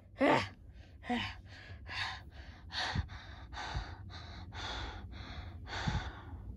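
A person panting: a run of short, breathy puffs, about two a second.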